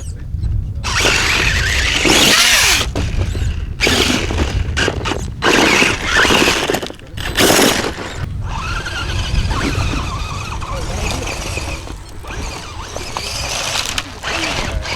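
RC off-road car's motor and gears whining in repeated bursts as it is driven hard up the track, with its wheels spinning and throwing dirt. A steady low rumble of wind on the microphone runs underneath.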